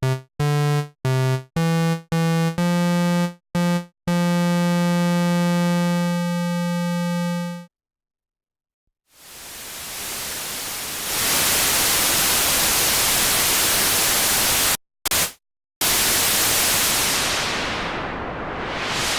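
u-he TYRELL N6 software synthesizer playing a run of short pitched notes and then one held note. After a brief silence, its noise generator fades in as a steady, loud white-noise hiss, the raw sound of a synthesized storm wind. The hiss cuts out twice briefly, and near the end its high end is swept down and back up, like a gust.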